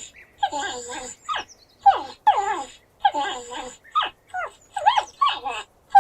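Porcupine vocalizing: a rapid series of short whining calls, many falling in pitch, mixed with rougher grunting sounds, about two a second.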